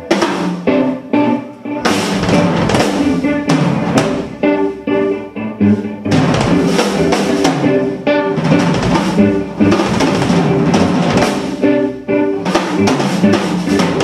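Live instrumental rock-fusion band playing loudly: a drum kit with busy bass drum and snare hits drives over electric guitar, bass and keyboards, with a few short stop-time breaks.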